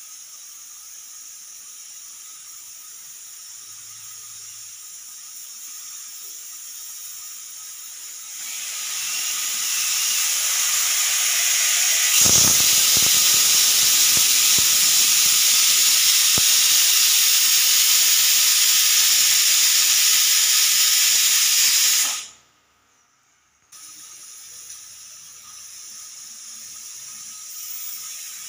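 Aluminium pressure cooker whistle venting steam as the cooker reaches pressure. A faint hiss builds about eight seconds in to a loud, steady jet of steam that cuts off abruptly about 22 seconds in. A fainter hiss follows.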